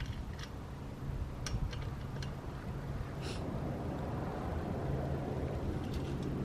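A few light metallic clicks and taps as the hardware at the top of a galvanized chain-link gate post is handled and tightened, over a steady low rumble.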